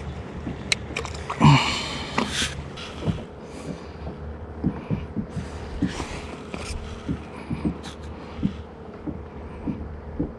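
Soft, irregular low knocks against a plastic kayak hull, about one or two a second, with a louder rustle about one and a half seconds in.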